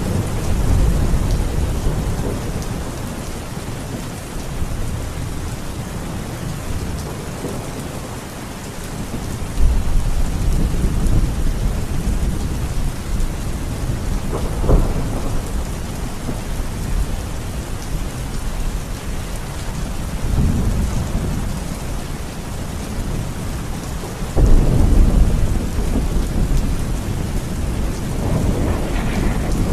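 Heavy rain falling steadily through a thunderstorm, with several rolls of thunder. Low rumbles break in at the start and again about ten seconds in, a sharper crack comes near the middle, and the loudest, heaviest rumble starts suddenly about 24 seconds in.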